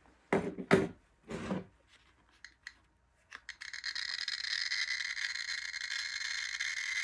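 Handling noise first, a few rubs and scrapes of the detector against the table. Then a GQ GMC-600 Plus pancake-tube Geiger counter clicks a few times and goes into a dense, rapid crackle as its count rate climbs into the thousands of counts per minute next to a uranium-ore test card.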